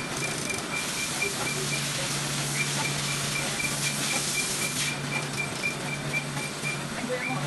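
Surface-mount pick-and-place machines on a running PCB assembly line, giving a steady whirring mechanical noise with a low hum. Over it, a high electronic beeper sounds in strings of rapid short beeps that stop about a second in and start again, twice.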